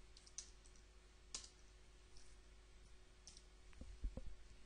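A few faint, scattered clicks at a computer over a low room hum, then a couple of dull low thumps near the end.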